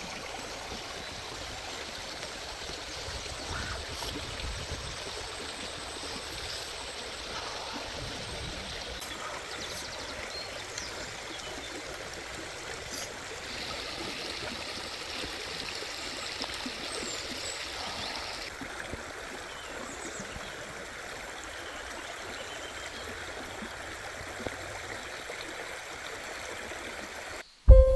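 Steady rushing noise like a flowing stream, with a few faint clicks. Near the end it drops out and loud music starts suddenly.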